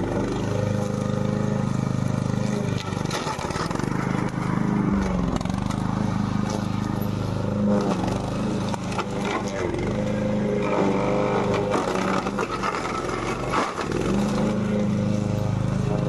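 Engine of a four-wheel-drive remote-control robot lawn mower running steadily as it drives and mows through rough grass and brush. The engine note dips briefly a few times, and scattered knocks and rattles come through.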